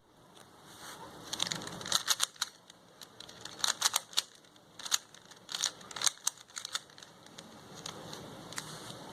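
3x3 Rubik's cube being scrambled by hand, its layers turned in quick clusters of sharp plastic clicks that come unevenly, thinning out toward the end.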